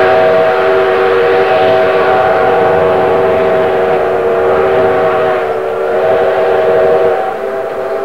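Steam locomotive whistle blowing one long, steady blast of several tones sounding together, dipping briefly about five seconds in and easing off near the end.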